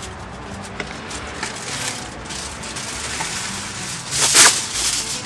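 Low handling and rustling of corn husks and food-prep things on a table. About four seconds in there is one brief, loud, crinkly rustle.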